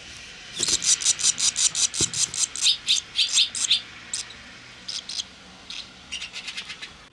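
Barn swallow nestlings begging: a fast run of sharp, high chirps, about eight a second, lasting about three seconds, then thinning to scattered chirps.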